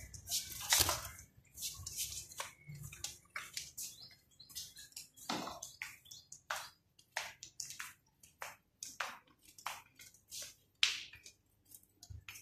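Caged bulbul giving a string of short, sharp chip calls, irregularly spaced at about two a second, some dropping quickly in pitch.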